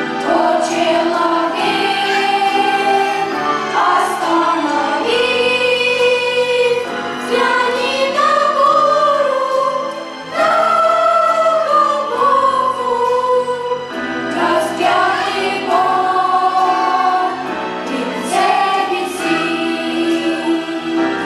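Church choir singing a hymn in several parts, in long held phrases with a short break about ten seconds in.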